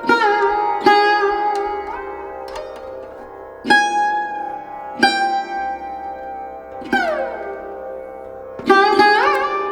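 Instrumental music on a plucked string instrument: slow single notes struck one at a time and left to ring, with a long downward slide about seven seconds in and an upward slide near the end.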